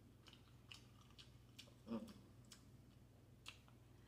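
Faint chewing with closed lips: a few soft, irregular mouth clicks about every half second and one slightly louder soft sound about two seconds in.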